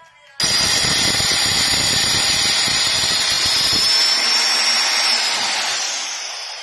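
Handheld electric marble cutter with a diamond blade cutting a 45-degree corner off a marble strip: a loud grinding with a high steady whine that begins suddenly. The grinding stops about four seconds in, and the whine then drops slightly in pitch and fades.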